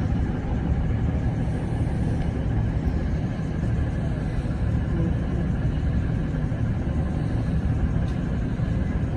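Diesel engine of a V/Line VLocity railcar running steadily at low revs as the train shunts slowly into a siding.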